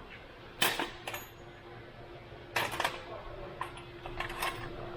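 Sharp metallic clinks of hand tools and sockets being handled, over a faint steady hum. The loudest clink comes about half a second in, and a quick cluster follows about two and a half seconds in.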